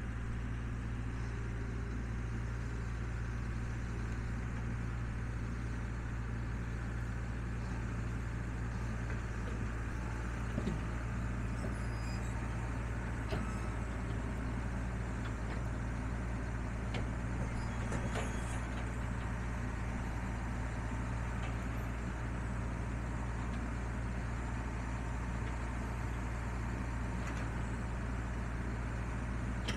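John Deere 6175M tractor's six-cylinder diesel engine running steadily, with a few faint clicks along the way.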